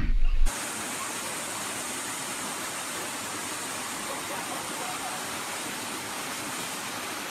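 A brief shout cut off about half a second in, then the steady, even rush of a waterfall.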